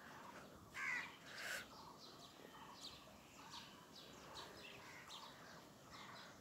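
A crow cawing twice, about a second in and again half a second later, over scattered chirps of small birds.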